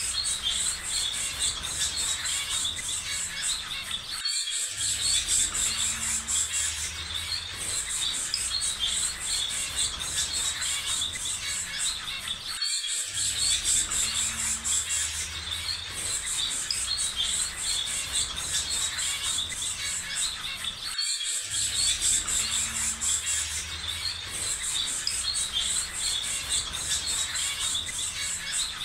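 Looped nature ambience: birds chirping over a steady, high insect chorus with a low rumble underneath. The same stretch repeats about every eight seconds, with a brief dip each time the loop restarts.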